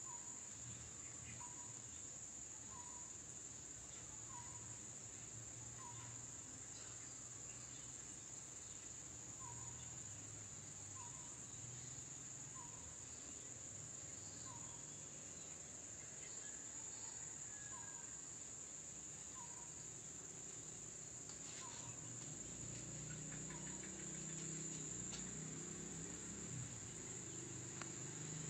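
Crickets trilling in a steady, high-pitched chorus. A faint short call repeats about every second and a half, and a low hum grows in the second half.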